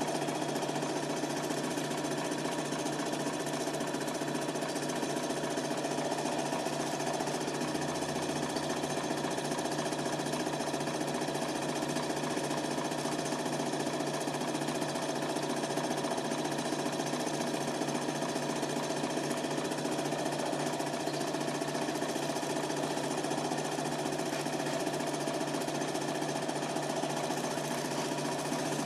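A Super 8 film projector running: a steady, rapid mechanical clatter with a constant motor hum underneath.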